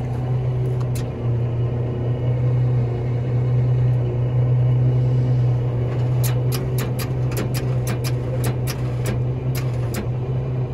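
Volvo semi-truck's diesel engine idling with a steady low hum. From about six seconds in there is a quick run of sharp clicks, about three to four a second.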